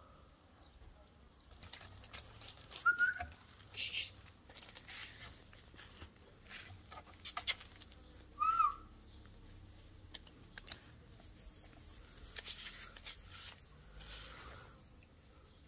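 Jack Russell puppies playing on grass: two short, high squeaks, one about three seconds in and a stronger one just past the middle, among scattered light rustles and clicks.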